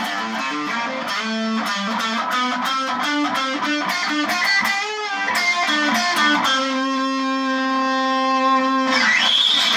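Electric guitar playing a quick run of notes, then holding one long note for about two seconds before it cuts off near the end.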